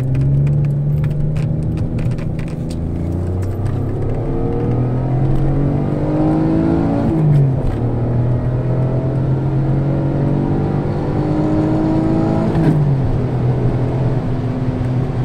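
Alfa Romeo GT's 3.2-litre Busso V6 under full-throttle acceleration, its pitch climbing steadily through the revs. It drops sharply at two upshifts, about seven seconds in and again about thirteen seconds in, then climbs again.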